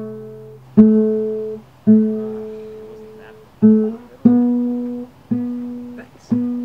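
Background music: a guitar, which sounds acoustic, picking single notes that ring out and fade, about one a second.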